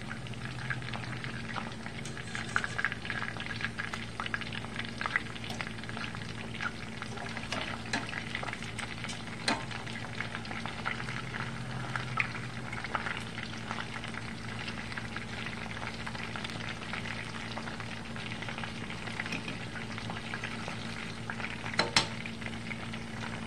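Battered chicken pieces deep-frying in hot vegetable oil in a skillet: a steady sizzle full of small crackling pops. A few sharper clicks stand out, one near the middle and a couple near the end.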